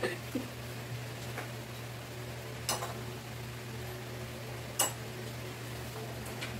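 Cutlery clicking and clinking on plates during a meal: a few light taps and two sharper clinks, the second the loudest, over a steady low hum.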